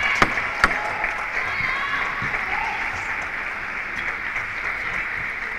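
Arena crowd applauding after a table tennis point, the applause slowly dying down, with two sharp clicks near the start.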